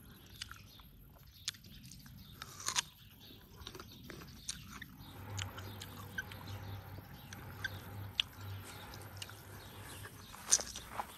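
A person biting and chewing a crunchy pear, with scattered sharp crunches, the loudest about a quarter of the way in and near the end.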